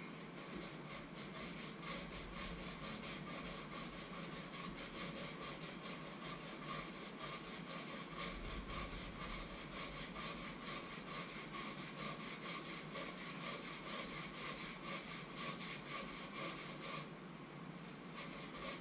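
Potato being peeled by hand over a bowl: quick rhythmic scraping strokes, several a second, that stop near the end.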